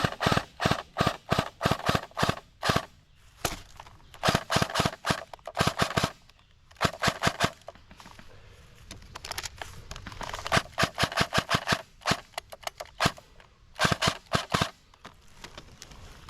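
Airsoft rifle firing several bursts of rapid shots with short pauses between them: suppressing fire to cover a teammate running for cover.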